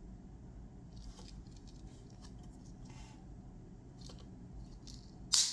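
Victorinox Swiss Army knife tools being worked by hand: faint metallic clicks and light scraping, then a single sharp snap near the end as a blade snaps into place on its backspring.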